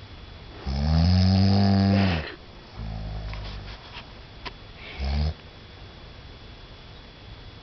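A man snoring in his sleep: one long loud snore about a second in, a softer breath after it, and a short snort about five seconds in, followed by a pause of a few seconds.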